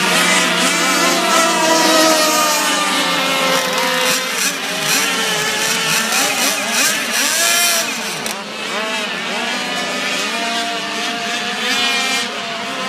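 Several radio-controlled racing boat engines running together at high revs, their overlapping whines rising and falling in pitch as the boats pass.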